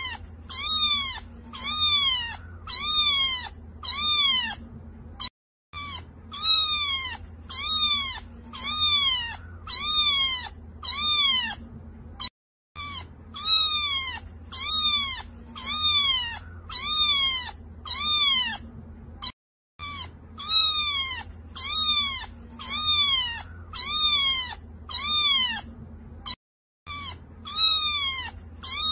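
Cat meowing: short, high-pitched meows, each rising then falling, about one and a half a second. The same run of meows repeats every seven seconds or so, with a brief silent break between runs.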